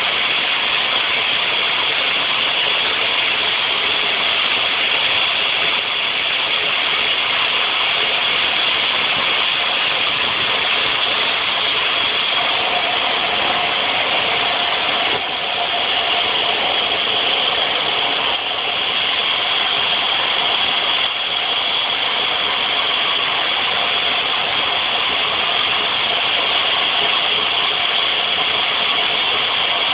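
Steam locomotive standing with steam escaping in a loud, steady hiss. A faint steady tone joins about twelve seconds in.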